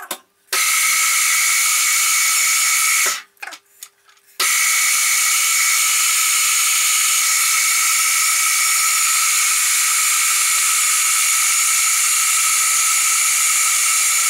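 Milling machine running with a drill chuck in its spindle, drilling holes in a steel part: a loud, steady hiss with a high whine. It cuts out suddenly about three seconds in and comes back about a second and a half later.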